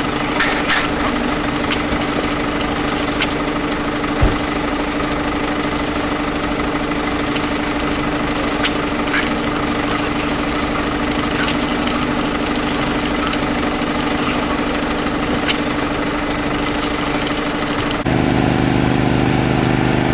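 An engine idling steadily with a constant hum, with a few faint clicks and one short thump about four seconds in. About 18 seconds in, a louder, deeper engine hum takes over.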